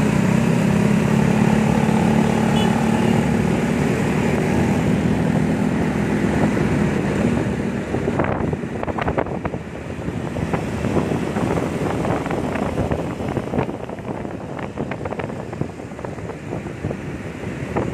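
Motor scooter engines idling together in a queue at a traffic light, a steady hum; about seven or eight seconds in the traffic pulls away and the sound turns into the ride itself, engine noise mixed with gusty wind buffeting the microphone.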